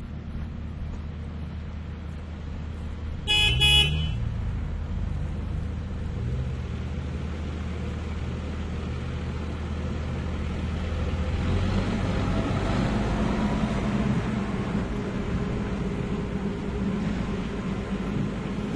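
Tractor engine idling steadily, with a short horn toot about three and a half seconds in. About eleven seconds in the engine picks up and runs harder and a little louder, as when the tractor starts working.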